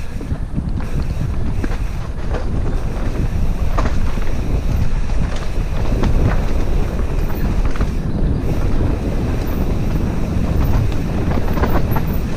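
Wind buffeting the microphone over the rattle and rumble of a mountain bike descending a rough dirt trail, with a few sharp knocks as it hits roots and bumps.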